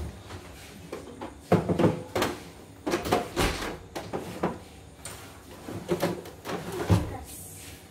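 White plastic embroidery unit being slid across a wooden bench and fitted onto an embroidery machine: a run of plastic clunks and knocks with scraping between them.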